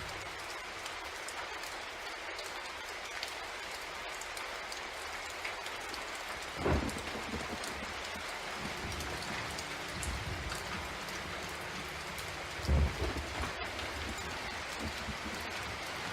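Steady rain hiss over the low rumble of a train in motion. Two short low thumps stand out, about seven and thirteen seconds in.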